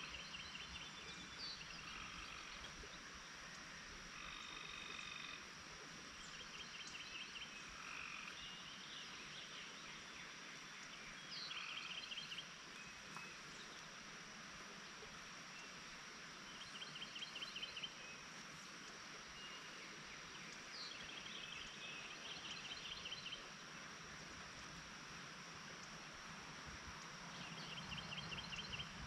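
Outdoor summer ambience: a steady high-pitched insect drone, with short, rapid trilled animal calls every few seconds.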